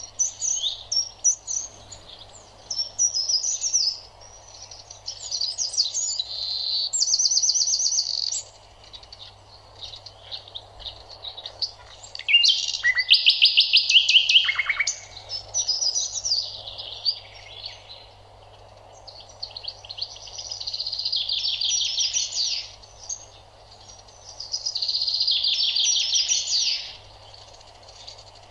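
Small songbirds singing: quick chirps and fast trilled phrases that come and go, with a louder burst of trilling about halfway through, over a faint steady low hum.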